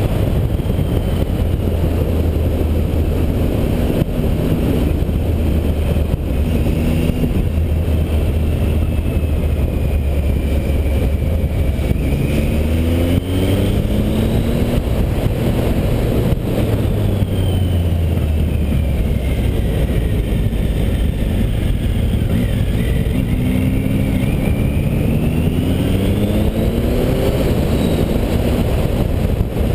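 Triumph Tiger 800 XC's three-cylinder engine running under way, with a steady rush of wind noise over the microphone. The engine note rises in pitch twice as it accelerates, once around the middle and again near the end.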